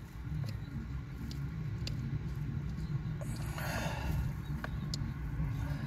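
Faint clicks and a brief rustle about three and a half seconds in, from hand work on a bolt in a cramped spot, over a steady low hum.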